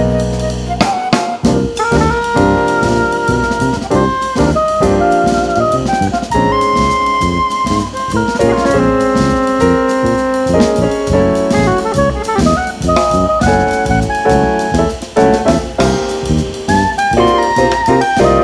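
Small jazz ensemble playing an instrumental: a held, flowing melody on oboe and flute over piano, bass and a steadily played drum kit.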